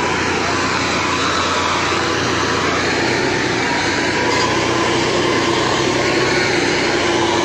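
Heavily overloaded truck's diesel engine running under strain, a steady loud drone with a thin whine above it that rises slightly in pitch.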